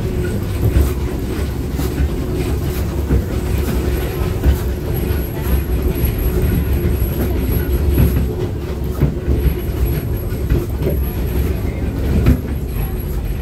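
Train rolling along the track, heard from an open passenger car: a steady low rumble of wheels on rail, with scattered clicks from the rail joints.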